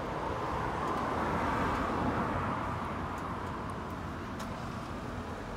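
Road traffic: a passing vehicle's noise swells to a peak about two seconds in and then slowly fades away.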